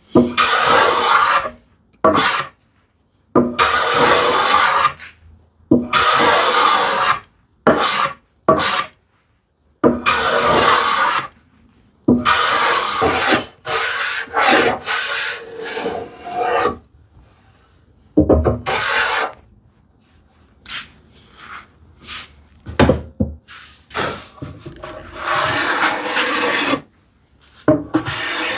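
Small hand plane taking chamfer strokes across the end grain of a solid cherry board, a rasping scrape on each pass. Strokes of a second or two come one after another with short pauses, a few lighter passes in the second half.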